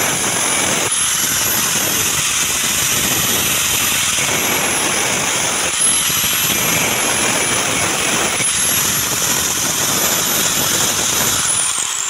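Power tool running continuously while cutting off the threaded boss of a table fan motor's cast housing. A high whine dips in pitch a few times and falls away near the end as the tool winds down.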